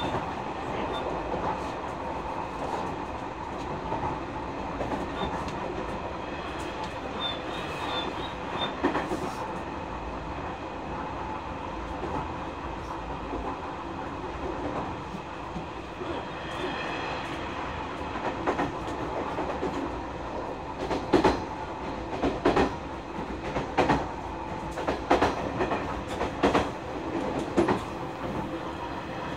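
Nishitetsu 9000 series electric train running, heard from inside the passenger car: a steady hum of its Toshiba hybrid-SiC VVVF inverter-driven induction motors and gearing over the rolling noise. In the second half, wheels click over rail joints roughly once a second.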